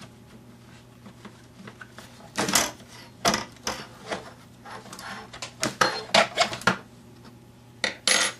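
Irregular clicks, knocks and clatter of hard plastic parts as the handle is worked off a Black & Decker electric hedge trimmer, with a long metal screw handled and set down on the table. The knocking starts about two seconds in.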